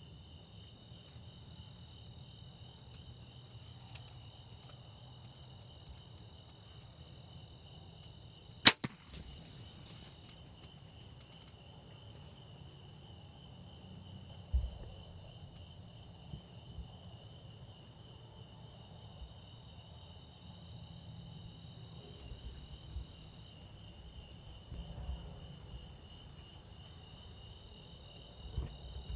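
Steady insect chorus, several high pulsing trills at once, faint throughout. About nine seconds in comes one sharp, loud snap, and a duller thump follows some five seconds later.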